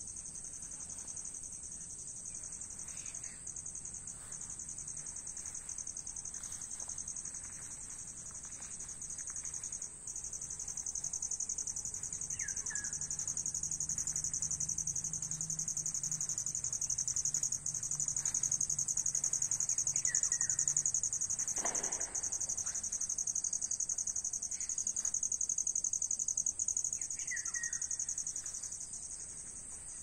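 A steady, shrill, high-pitched chorus of insects, finely pulsing, that swells somewhat in the middle of the stretch. A bird gives a short chirp three times over it.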